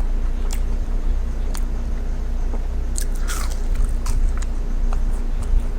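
Close-up chewing and biting of fast food: irregular wet mouth smacks and crunchy clicks, a handful spread through, with a longer crunchy bite about three seconds in, over a steady low hum.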